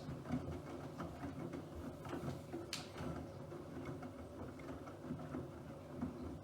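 Bosch WFP3231 washing machine running, its drum motor humming steadily, with a few short clicks and swishes on top, the sharpest about two and a half seconds in.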